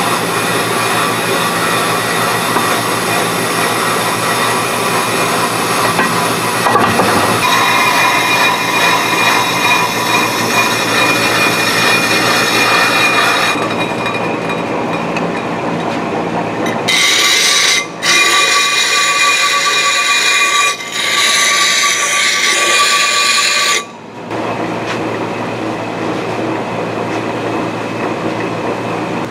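Bench brake lathe running, turning a 2009 Chevy Silverado 2500 HD front brake rotor on its arbor: a continuous metallic machine noise. From about 17 to 24 seconds a higher ringing of several steady tones stands out over it.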